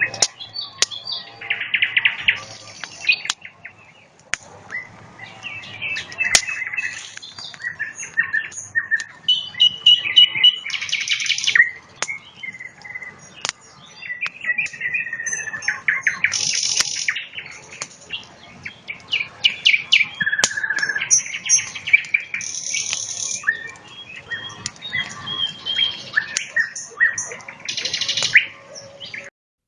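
A nightingale singing loud, varied phrases of rapid trills, clicks and whistled notes, each phrase separated by short pauses. Occasional sharp crackles from a campfire are heard.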